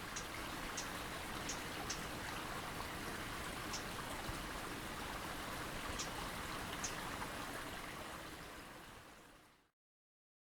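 A small wild bird giving short, high call notes at irregular intervals over a steady rush of running stream water, all fading out near the end.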